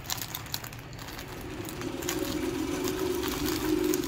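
Plastic courier bag and plastic-wrapped garments crinkling and tearing as they are handled and pulled open. A steady low hum comes in about one and a half seconds in and grows louder.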